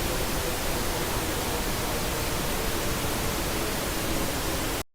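Steady broadcast static hiss, standing in for a transmission breaking up as communications fail. It cuts off suddenly to dead silence just before the end.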